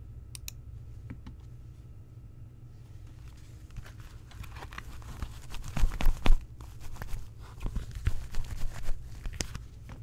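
Glossy plastic pouch crinkling and rustling as hands pull it open and handle it, a dense run of crackles that is loudest about halfway through. A few small clicks come in the first second.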